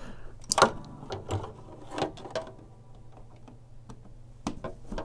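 Scattered clicks and knocks of power plugs being pulled out of and pushed into a socket, with a cord and plug rattling. The loudest knock comes about half a second in.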